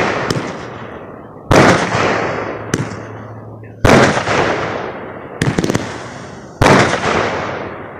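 Aerial fireworks bursting: three loud booms about two to three seconds apart, each dying away over a second or two, with a quick cluster of smaller pops between the second and third.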